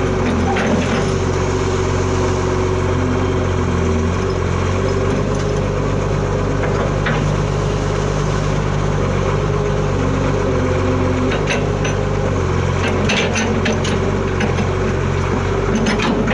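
Diesel engine of an old Sumitomo 20-ton hydraulic excavator running, its note shifting up and down now and then. Short metallic clicks and clanks come in, more often near the end.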